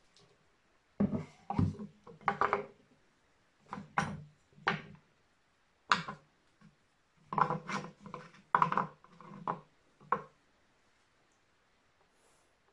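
Wooden-handled carving chisels and a carved wooden relief panel being set down on a wooden tabletop: a series of about ten hard wooden knocks and clatters, stopping near the end.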